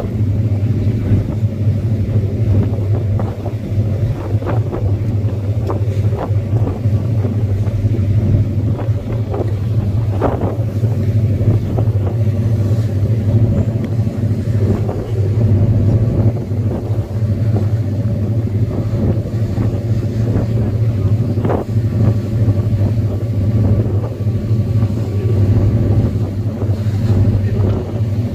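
Steady low drone of a vehicle's engine heard on board, with occasional light knocks and rattles.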